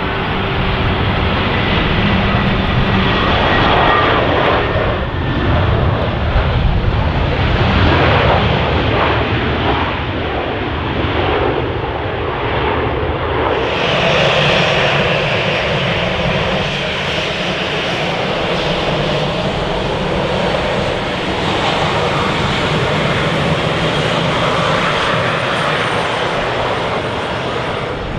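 Jet airliner engines rumbling steadily as the plane comes in to land, with strong wind buffeting the microphone. The sound grows brighter and hissier about halfway through.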